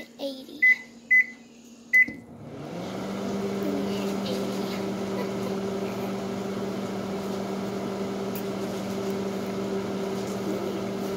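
Microwave oven keypad beeping three times as buttons are pressed, then the microwave starts about two seconds in and runs with a steady hum.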